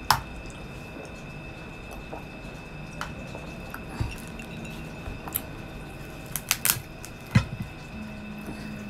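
Eating and drinking at a table: swallowing and chewing mouth sounds, with a few sharp clicks and knocks from a glass mug and a plate being handled. The loudest click comes right at the start and another about seven seconds in. A faint steady high whine runs underneath.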